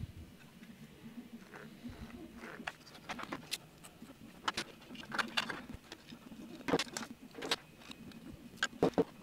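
Scattered light clicks and knocks of 3D-printed plastic parts being handled and fitted together, with cables shifting against them.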